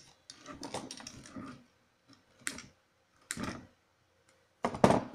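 Irregular plastic clicks and rattles as a circuit board is worked loose from a stud finder's opened plastic housing, with a louder clatter near the end.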